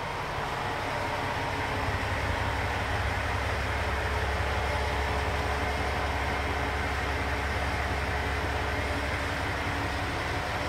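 Diesel railcar's engine idling steadily with a low rumble, a little louder from about two seconds in.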